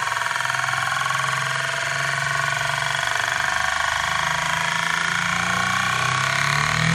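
Euler's disk, a heavy steel disc, spinning down on its mirrored base: a continuous fast whirring rattle as its edge rolls on the glass, the pitch climbing near the end as the disc settles flatter and the wobble speeds up.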